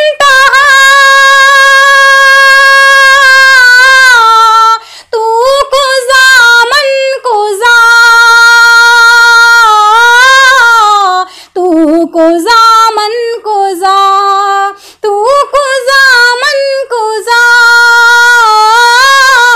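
A woman singing a devotional Urdu naat solo without accompaniment, in long held notes that waver and bend, broken by short pauses for breath about every few seconds.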